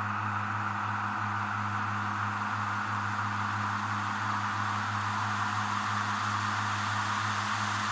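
Steady machine hum with an even hiss of water: a glass edge-grinding machine running under its coolant spray.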